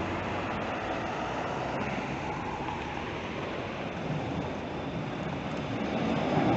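Steady street traffic noise, with a tram approaching on its rails. Its low rumble grows louder near the end.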